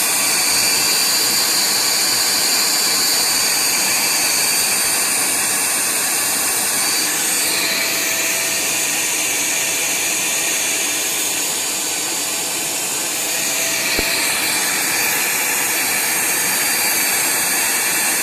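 AVC 212 vacuum cleaner running steadily, its motor giving a rushing, high-pitched whine whose pitch shifts slightly a couple of times, with one faint click near the end.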